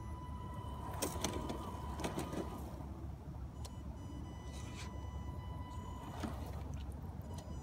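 Small electric drive motor of a TRX-4 RC crawler whining steadily as it slowly reverses a boat trailer, with a few sharp clicks and ticks.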